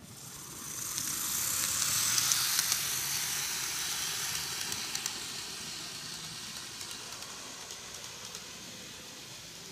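N-gauge model Meitetsu EL120 electric locomotive running past on model track: a hissing whir from its motor and wheels with a few light clicks. The sound is loudest about two seconds in and fades slowly as the locomotive moves away.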